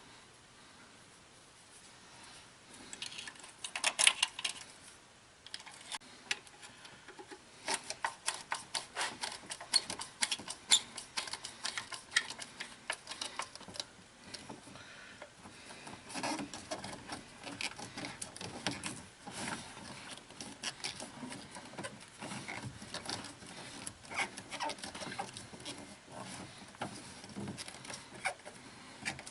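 Irregular small clicks, taps and rattles of hand tools and small parts being handled during hands-on work on a car's distributor.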